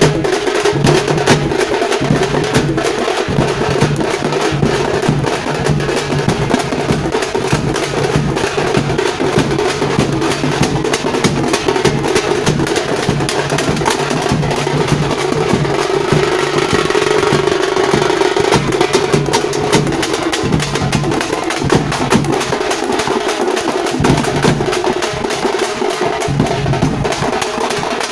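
Tamate frame drums beaten in a fast, continuous rhythm of dense strikes.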